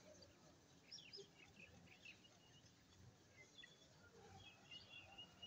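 Faint chirping of small birds: scattered short high chirps, with a held high note toward the end.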